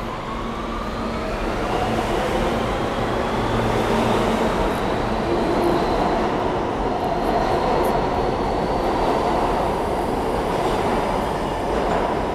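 New York City Subway F train pulling out of the station and picking up speed, its motors whining in a slowly rising pitch over the steady rumble of the cars rolling past. Near the end the sound eases as the train draws away.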